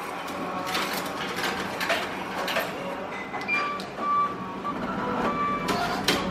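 Japanese meal-ticket vending machine taking money: clicks and mechanical whirring as money is fed in, then several short electronic beeps from about halfway.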